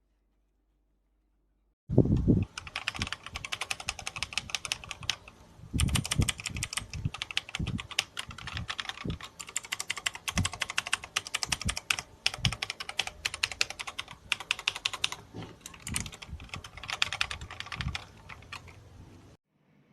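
Fast typing on a mechanical keyboard with Cherry MX-style switches: a dense run of key clicks with occasional heavier thumps. It starts about two seconds in, eases briefly a few seconds later, then stops just before the end.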